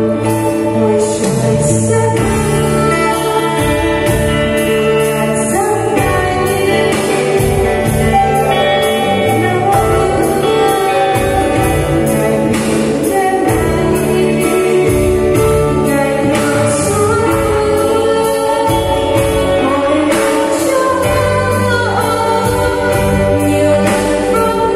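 Christian worship song played by a band: a singer over keyboard and a steady beat, with an electric bass playing along on the low notes.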